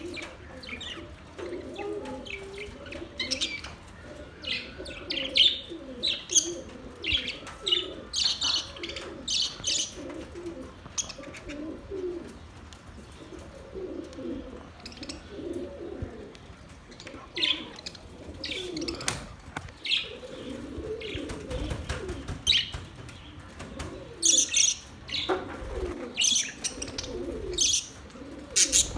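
Budgerigars chirping and chattering in short, frequent high calls, over a steady low cooing.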